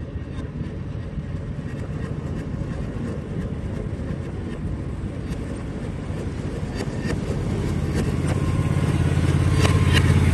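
Railroad speeders, small motorized track cars, running on narrow-gauge rails with a steady small-engine chug. The sound grows louder over the last few seconds as one comes closer, with scattered sharp clicks.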